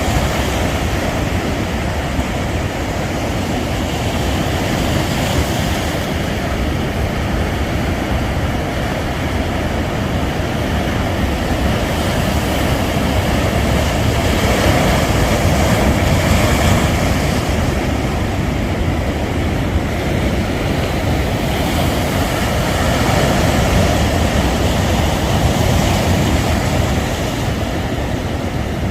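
Sea waves breaking on a sandy beach, a steady rushing surf that swells louder twice.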